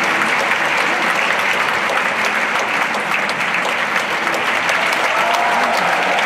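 Large theatre audience applauding steadily, a dense, even clapping that does not let up.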